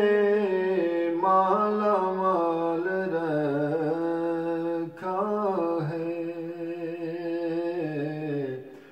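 A solo male voice singing an Urdu devotional kalam, drawing out long melismatic notes whose pitch bends up and down. He pauses briefly for breath about five seconds in, and the last held note fades away near the end.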